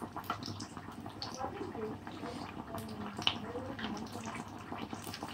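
Battered fish deep-frying in a pan of hot oil: a steady sizzle with scattered pops and crackles.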